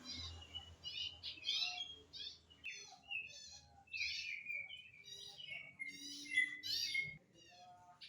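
A small songbird chirping busily: a rapid string of short, high, downward-sweeping notes, several a second.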